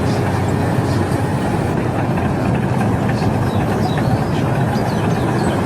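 Steady, loud mechanical rumble of heavy machinery, with faint short high squeaks scattered through it.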